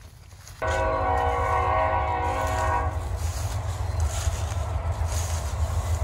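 A horn blast that starts suddenly and holds one steady chord for about two seconds, over a low rumble that keeps going after the horn stops.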